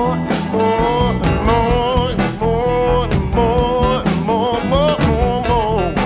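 Blues-rock song played by a band: a lead melody with bending, sliding notes over electric bass and a steady drum beat.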